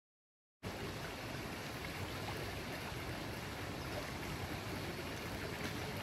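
Muddy water rushing down a narrow woodland ditch and frothing as it spills out, a steady rushing that starts abruptly about half a second in and cuts off suddenly at the end.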